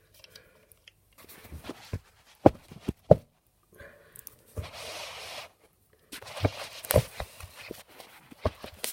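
Handling noise from a plastic thermostatic radiator valve being moved about: several sharp clicks and knocks, with two stretches of rustling in the middle.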